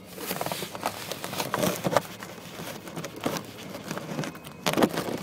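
Shiny foil helium balloon crinkling and scraping against the phone's microphone, a run of irregular crackles and rubs with louder scrapes about two seconds in and near the end.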